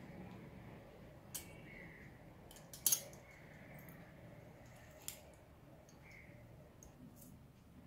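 Hinged stainless-steel hand-held citrus squeezer pressing lemon halves over a glass: a few faint sharp metallic clicks, the loudest about three seconds in.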